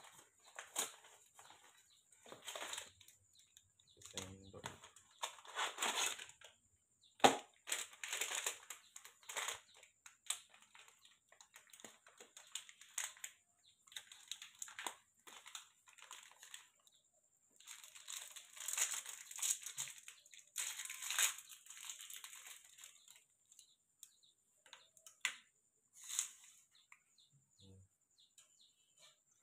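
Cardboard milk-powder carton and the foil sachet inside being handled and opened: irregular crinkling and rustling, with one sharp snap about seven seconds in.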